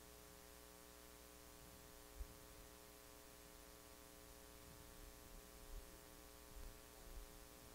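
Near silence: steady electrical mains hum in a quiet room, with a faint low knock about two seconds in and a few faint low bumps near the end.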